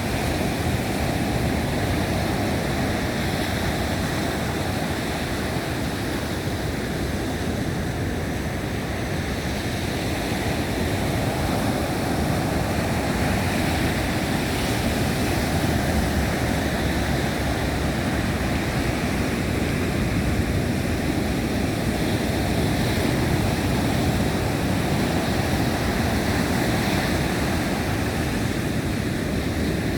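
Big Atlantic surf breaking in a continuous roar under strong wind, with a heavy low rumble from wind on the microphone. The level stays steady, swelling slightly at times.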